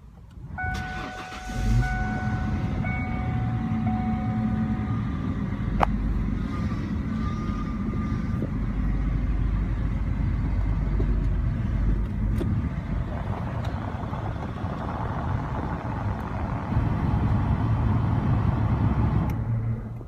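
A 1994–98 Ford Mustang's engine started by its push-button ignition: it catches about two seconds in and then idles steadily. Just before the end it shuts off.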